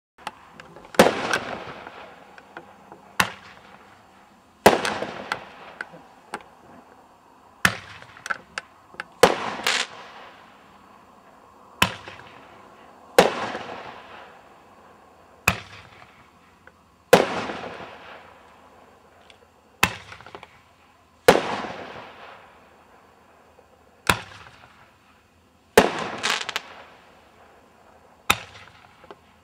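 A 20 mm multi-shot consumer firework, 'Kazino', firing shot after shot, about one every four seconds. Each shot is a sharp launch crack followed about a second and a half later by a louder aerial burst whose sound fades out over a second or so.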